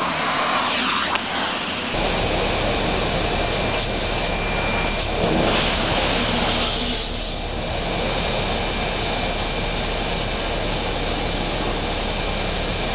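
Compressed-air vacuum cleaner running: a loud, steady rush of air hiss, which grows fuller with a deeper rumble about two seconds in.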